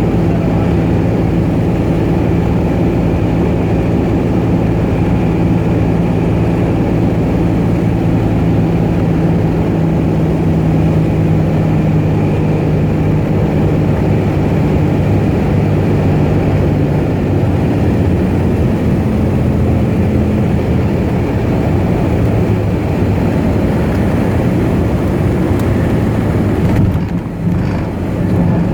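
Cessna 210's piston engine and propeller droning steadily, with a brief dip in level near the end.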